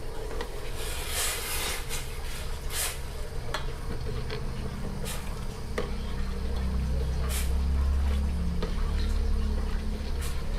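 Metal ladle stirring thin red pork sauce in a stainless steel bowl, with a few sharp clinks of the ladle against the bowl. Under it runs a steady low rumble from the gas burner's flame, louder in the second half.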